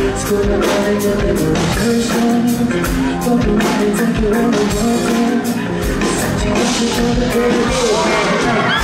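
A man singing live into a microphone over amplified pop/R&B music with a steady beat, heard through a festival PA. Near the end, high screams from fans start to rise over it.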